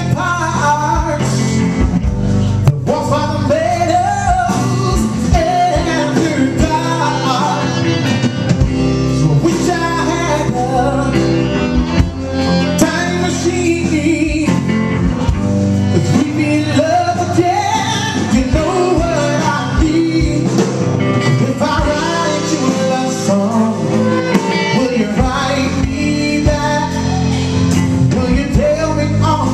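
A song with singing over guitar-led band music, a steady beat.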